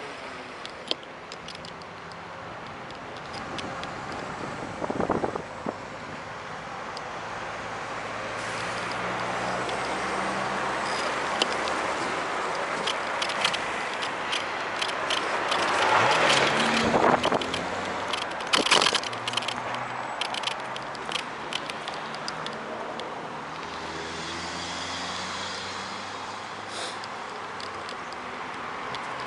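Steady road and wind noise while riding a Kugoo V1 Plus electric scooter, with many small clicks and rattles. The noise swells louder a little past halfway, with passing traffic.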